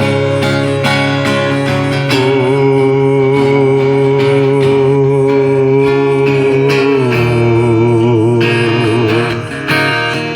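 Strummed acoustic guitar music carrying on after the last sung line, with a long held note over it that wavers in pitch near the end.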